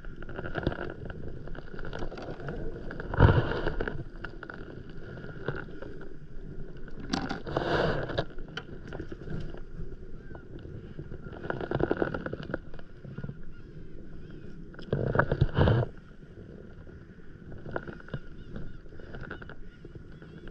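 Small waves lapping against an inflatable paddleboard, with about four louder bursts of rustling and knocking as a fishing line and rig are handled on the board.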